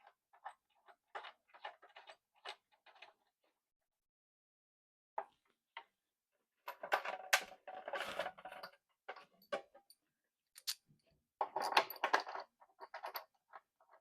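Metal head bolts clinking and scraping as they are handled and started by hand into a pinball cabinet's head: scattered light clicks, then two short stretches of denser metallic clatter.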